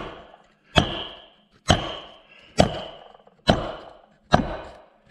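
Five evenly spaced mallet blows on a 2-inch socket, a little under a second apart, driving a John Deere B tractor's front pedestal down over its square O-ring seal. Each blow is a sharp knock with a brief metallic ring that fades before the next.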